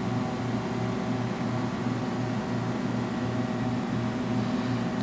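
Steady mechanical hum of running machinery, a low drone that pulses evenly a few times a second over a constant hiss.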